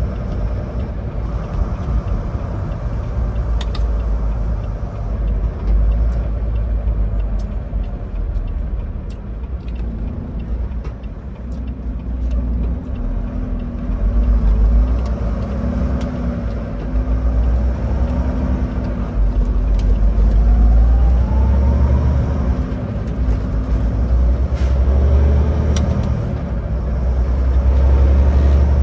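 A truck's engine and road noise heard from inside the cab while driving: a steady deep rumble whose engine note rises and falls with speed, climbing about two-thirds of the way through.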